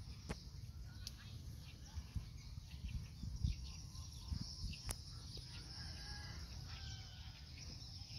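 Outdoor ambience: low wind rumble and handling knocks on the microphone, with a few sharp clicks and a faint distant animal call about six seconds in.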